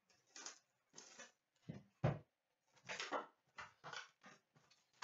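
A trading card box and its packs being handled on a counter: a string of short rustles and scrapes of cardboard and wrapper, with a knock about two seconds in.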